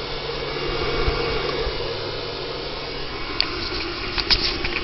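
Steady whir and electrical hum of a grid-tie inverter's cooling fan running under load from solar panels. The low hum fades about three seconds in, and a few light clicks follow near the end.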